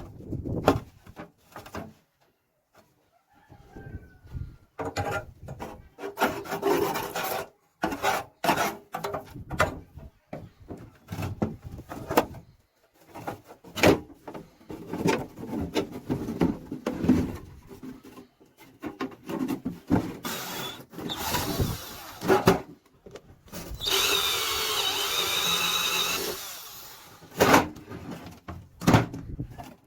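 Hand tool work on a rusty metal toolbox: irregular knocks, clicks and scraping. About three quarters of the way through, a power tool runs steadily for a couple of seconds with a thin high whine.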